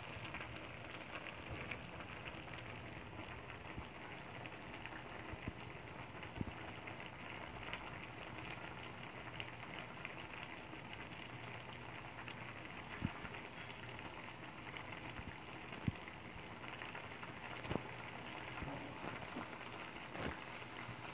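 Squid soup simmering in a wok: a faint, steady bubbling hiss with scattered small pops.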